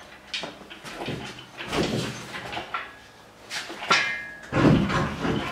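Several separate metal clunks and scrapes as a Ford Focus ST engine, hanging from an engine crane's chain, is worked loose and eased out of the engine bay. The longest and loudest scrape comes near the end.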